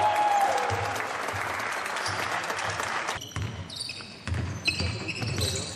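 Basketball bouncing on a wooden sports-hall floor during play, with short high shoe squeaks and players' voices echoing in the hall.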